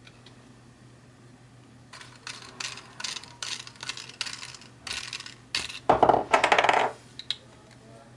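Hard plastic parts of a 3D-printed model-aircraft landing gear clicking, scraping and rattling as the wheel is handled in its strut and the pieces are taken apart. Quiet for about two seconds, then a run of short bursts that grows loudest about six seconds in.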